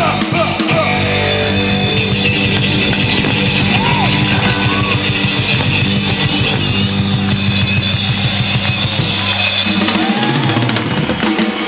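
Live rock band playing loud, with fast, driving drumming on a drum kit, electric guitar and a held bass note. About ten seconds in, the held low note gives way to a change in the music.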